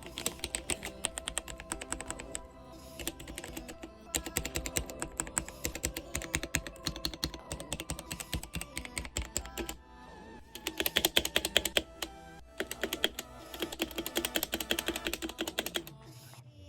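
Fast typing on a K66 mechanical keyboard: dense runs of key clicks in four or five bursts separated by short pauses.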